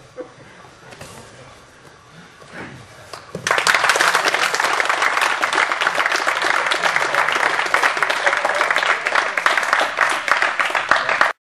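Audience applauding, starting suddenly about three and a half seconds in after a quiet stretch and cutting off abruptly near the end.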